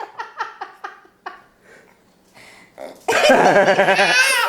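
A toddler making his funny croaky, frog-like noise with his voice, mixed with laughter. It starts with a short run of fading pulses, then after a pause becomes a loud, wavering croak about three seconds in.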